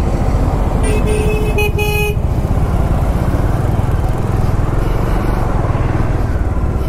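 Motorcycle riding over a rough, broken dirt road, with a steady low rumble of engine and wind. Between about one and two seconds in, a vehicle horn gives a quick string of short toots.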